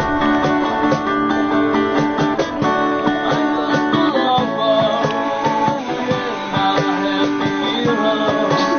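Background music: plucked acoustic guitar with many quick picked notes.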